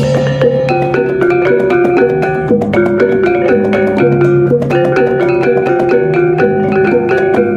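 Music: a melody of short pitched, mallet-like notes over a steady ticking beat and a held bass line.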